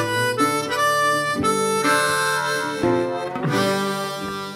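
Background music with a harmonica carrying the melody over sustained chords.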